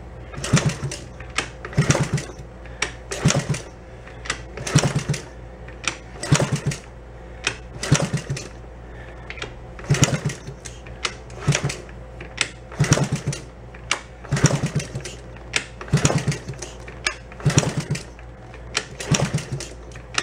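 Old Honda 50 minibike's small single-cylinder four-stroke engine being turned over with the kick starter, again and again, about one stroke every second and a half. Each stroke gives a quick rattle of clicks and a short spin-over, and the engine does not fire.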